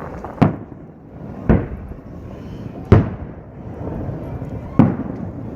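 Aerial fireworks shells bursting: four sharp booms at uneven gaps of one to two seconds, each trailing off in a short echo.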